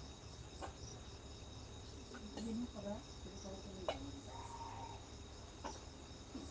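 Faint, steady, high-pitched insect trill, like crickets, with a few faint voices and small clicks in the background.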